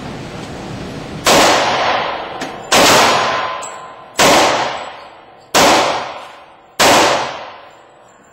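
Five shots from a Glock 21 Gen4 .45 ACP pistol, fired at a steady pace about one and a half seconds apart, each followed by a long echo.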